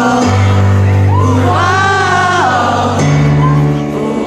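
A live band plays a slow song while voices sing a drawn-out melody over sustained bass notes, the audience joining in the chant.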